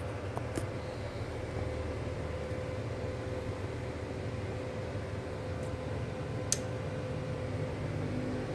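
Steady low mechanical hum and hiss with a faint steady tone, broken by two short sharp clicks, one about half a second in and one about six and a half seconds in.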